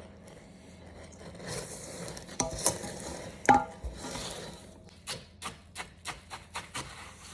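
Spoon stirring a dry chocolate-crackle mix of puffed rice, coconut, cocoa and icing sugar in a bowl, scraping and clinking against the bowl. Near the end the strokes become a run of regular knocks, about three a second.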